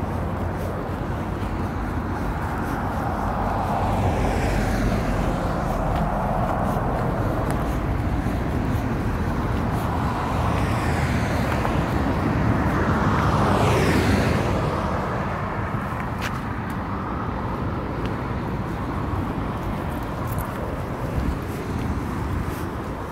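Street traffic: cars passing one after another over a steady rumble, the loudest coming up to a peak about fourteen seconds in and fading away afterwards. Small sharp clicks are scattered throughout.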